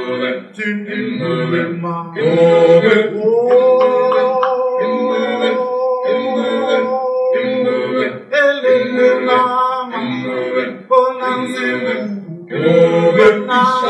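A cappella male singing in a rhythmic, chant-like pattern, with one long held note from about three to eight seconds in.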